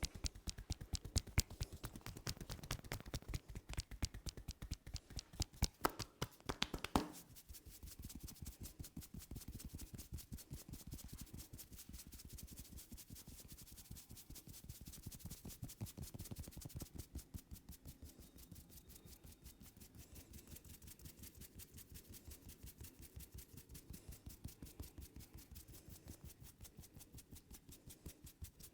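A barber's hands giving a head massage: fast, rhythmic tapping and slapping on the head, harder for the first several seconds, then going on as softer, steady strokes and rubbing.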